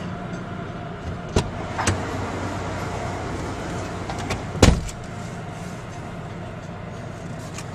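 Steady mechanical hum of a conveyor car wash heard from inside the car. A couple of sharp knocks come in the first two seconds, and a louder thump comes at about four and a half seconds.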